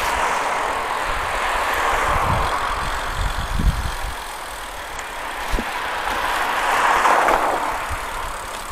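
Riding noise from a road bike moving along a street: a steady hiss of wind and tyres that swells twice, with a few low knocks from bumps in the road surface around the middle.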